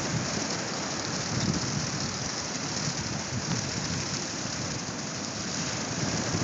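Strong wind rumbling and buffeting against a phone's microphone over a steady hiss of surf, with no break.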